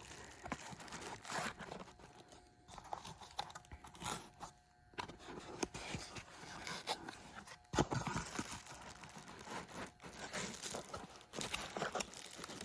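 Cardboard box and packaging being opened and handled: rustling, crinkling and small irregular clicks, with one sharper knock about eight seconds in.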